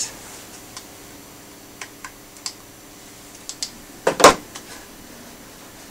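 Scattered light clicks of a computer keyboard and mouse being worked, with one louder click about four seconds in, over a faint steady hum.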